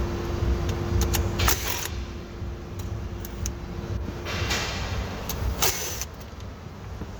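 A wrench working the 10 mm bolts that hold the steering-wheel airbag, with short metallic rattles and scraping rustles over a steady low rumble. A faint steady hum stops about four seconds in.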